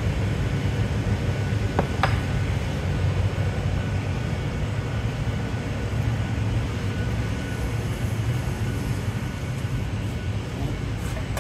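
Steady low roar of a glassblowing studio's glowing furnaces and big overhead exhaust hood, with a faint click about two seconds in.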